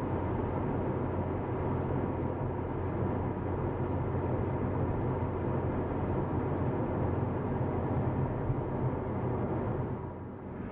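Steady road and engine noise inside a moving car, a low hum and rumble.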